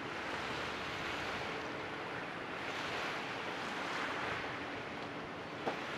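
Steady wind and water noise that swells and eases, under a faint hum of distant motorboats running. A single short click near the end.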